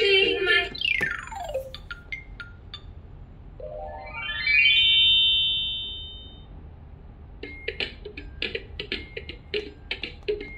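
Electronic sounds from a children's activity cube's toy speaker. A song ends, then comes a falling whistle and a few clicks. A rising whistle follows and holds its top note, and about seven seconds in a quick, bouncy tune of short notes starts.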